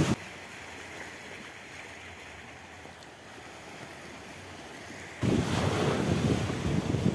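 Wind buffeting the microphone over waves washing on a shallow shore, starting suddenly about five seconds in. Before that, a quieter, steady hiss.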